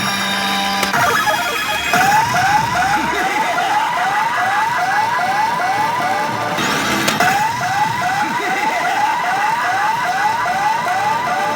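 Pachinko machine sounding an electronic siren-like effect: short rising whoops repeated about three or four times a second, with a brief break near the middle. It is one of the machine's hot-chance presentation sound effects.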